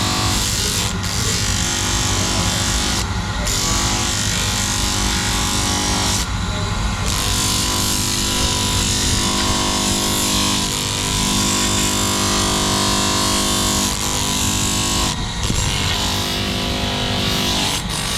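A power grinder running steadily on steel, a motor whine under a loud grinding hiss. The hiss drops out briefly a few times, as when the tool is lifted off the work.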